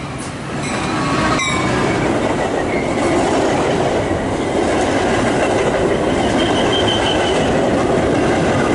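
Metra commuter train passing close at speed: the diesel locomotive goes by first, then the stainless-steel bilevel coaches rush past with steady rolling noise and wheels clattering over the rail joints. A sharp click sounds early on, and a brief high wheel squeal comes about two-thirds of the way through.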